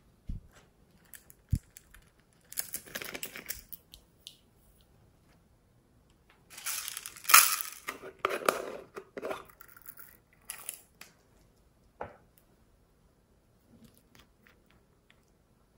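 Small plastic cosmetic-style containers being handled: two short knocks early on as things are set down, then crinkling and scraping as a plastic jar is twisted open, loudest about seven seconds in, with a few small clicks of caps later.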